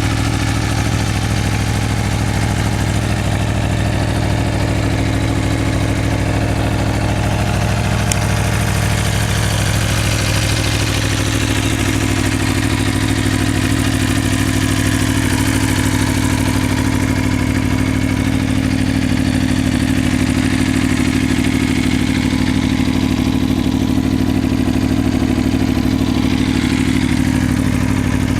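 2016 Aprilia Tuono V4 1100 RR's V4 engine idling steadily after a cold start, still warming up.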